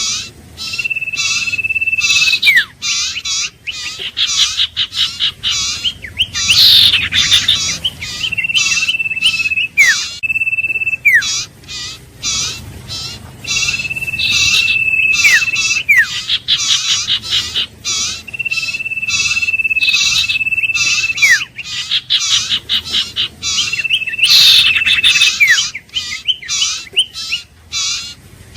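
Iora song: a long, steady whistle held for about a second and a half, ending in a sharp drop in pitch, repeated five times. Dense, rapid chirping runs under and between the whistles.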